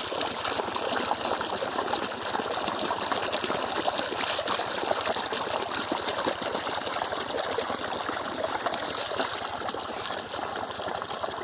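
Water flowing, running steadily and without a break.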